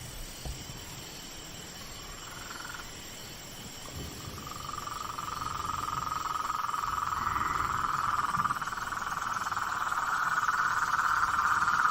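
A chorus of frogs calling, swelling steadily louder from about four seconds in, over steady high-pitched insect trilling.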